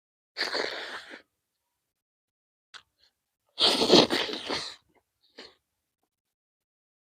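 Two loud bursts of breath noise from a person eating, about three seconds apart, the second longer and louder, with a couple of faint mouth clicks between.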